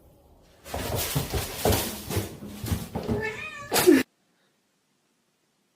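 Domestic cat meowing and yowling, several calls over a noisy background. It ends in one loud call that cuts off abruptly about four seconds in.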